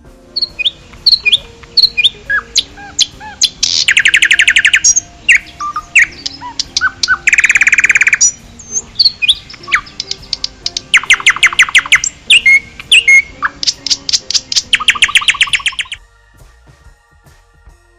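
A songbird singing: quick, high whistled notes broken by four longer rapid trills, stopping about two seconds before the end.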